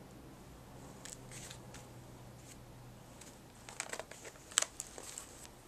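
Sketchbook pages and attached fabric pieces being handled: soft paper rustles, then a run of crinkles and clicks with the sharpest one about four and a half seconds in, over a faint low hum.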